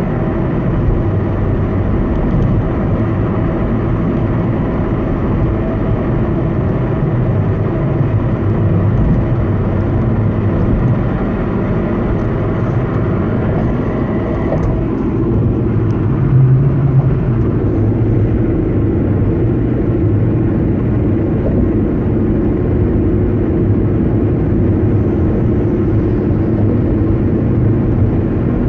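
A 2011 Honda Civic running with a steady humming noise: several steady tones over a low rumble. About halfway through the higher tones fall away, leaving the low hum and rumble.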